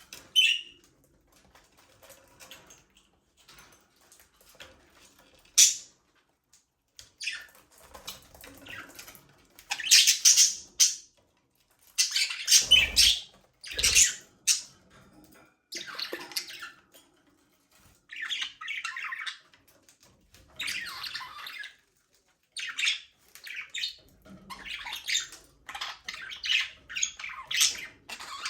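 Budgerigars chirping and squawking in bursts, sparse at first and busier after about ten seconds, with a couple of soft low thumps partway through.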